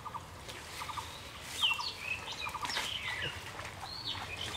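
Birds calling: several quick clusters of three short notes, mixed with high whistled calls that slide down in pitch.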